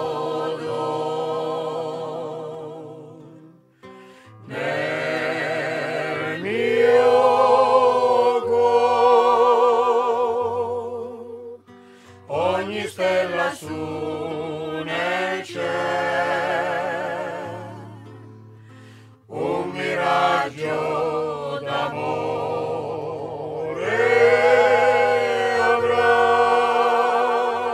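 A folk group singing a Tabarchino serenade together, in long held phrases with a wavering vibrato. The phrases break off briefly about every eight seconds, with steady low notes beneath the voices.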